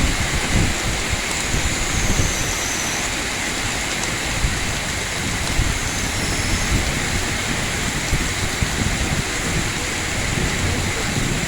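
Heavy rain falling in strong wind: a steady hiss with low, gusty rumbling from wind on the microphone.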